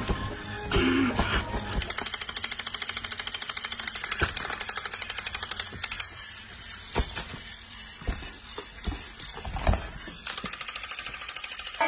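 Motorised crawling toy soldier clattering with a fast, even rattle from its gear mechanism, stopping about halfway through and starting again near the end, with a few single knocks in between.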